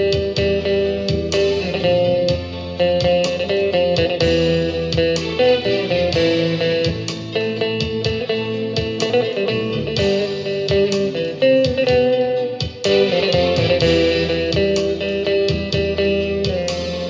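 Instrumental music led by guitar, with plucked notes and sustained melody lines.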